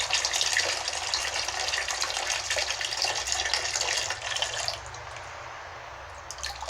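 Tap water running and splashing into a container, cutting off about five seconds in; a couple of brief clicks near the end.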